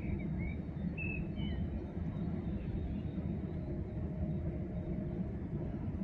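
Steady low outdoor rumble, with a few short high bird chirps in the first second and a half.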